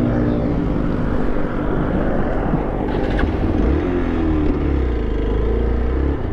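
Hero XPulse 200's single-cylinder engine idling steadily with the motorcycle stopped.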